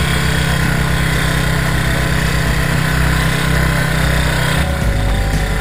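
Small motorcycle engine running steadily while riding, with a change in its sound near the end.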